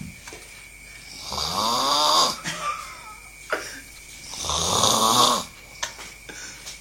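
A person snoring: two long snores about three seconds apart, each lasting about a second and rising and falling in pitch.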